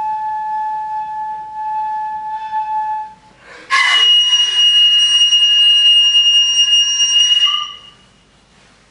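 Nohkan (Japanese Noh flute) holds a steady middle note for about three seconds. After a short break it plays a sudden piercing high note, breathy at its start, held about four seconds, ending on a brief lower note.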